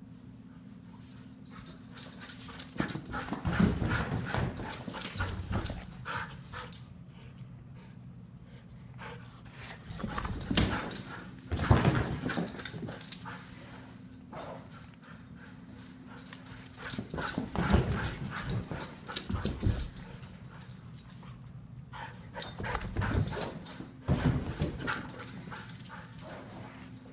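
Siberian husky running laps through the house: four loud bursts of rapid paw thumps and claw clicks on a tile floor as it races past, with quieter gaps between passes.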